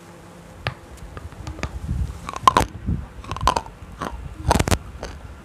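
Hard, brittle stone stick bitten and crunched right at the microphone, in a string of sharp cracks. The loudest come about two and a half seconds in, then a pair near the end.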